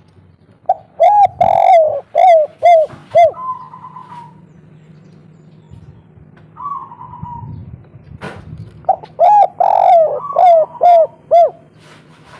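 Spotted dove of the local 'kuk 3' call type cooing: a phrase of about six quick, arched coo notes near the start, a softer drawn-out coo or two, then a second phrase of about seven quick notes about nine seconds in.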